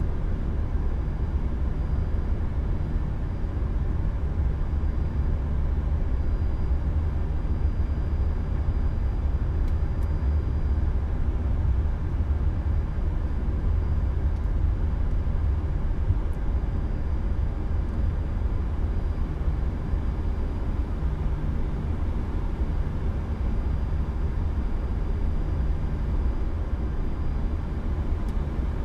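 Flight-deck noise of an Airbus A340-300 taxiing, heard inside the cockpit: a steady low rumble from the four idling CFM56 engines and the rolling aircraft.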